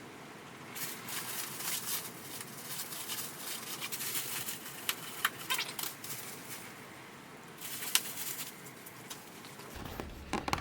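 Packaging and engine parts being handled: quick rustling with scattered light clicks and knocks.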